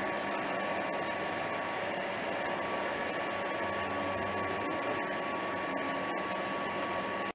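Steady hiss of a thunderstorm's wind and heavy rain, an unbroken even rush.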